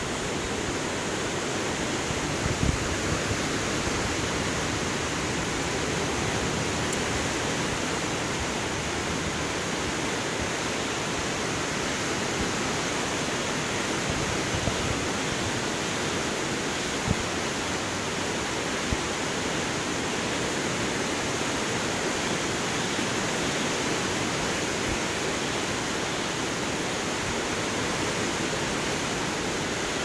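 Steady rushing of the Jhelum River's water over shallow gravel riffles, an even hiss with no pitch, broken by a few soft low bumps.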